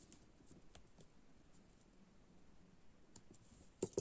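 Small embroidery scissors snipping the crocheted cotton yarn tail: two sharp, short clicks close together near the end, over near silence with a few faint ticks.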